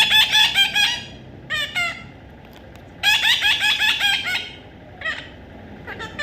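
Baby parrot calling: two runs of quick, harsh, rapidly repeated calls about a second long each, with a short pair and a couple of single calls between.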